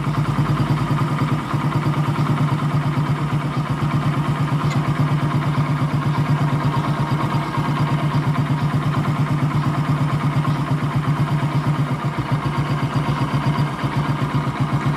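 Carbureted two-wheeler engine idling steadily with an even, fast pulse.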